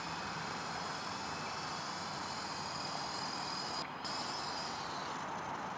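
"Big Lama" helicopter running in flight with a steady, high-pitched whine over a broad hum, briefly cutting out about four seconds in.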